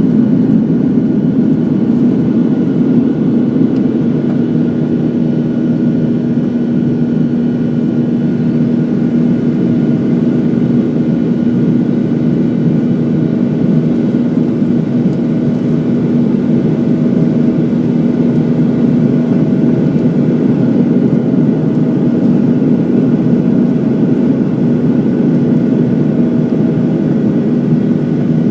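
Steady engine and airflow noise inside the cabin of a Boeing 737-900 climbing after takeoff, with a constant low hum and faint higher steady whines over it.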